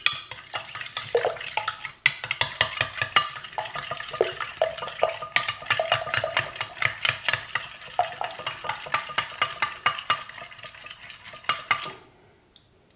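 A metal utensil beating Greek yogurt and eggs together in a mixing bowl: rapid clinking strikes against the bowl, several a second, stopping about a second before the end.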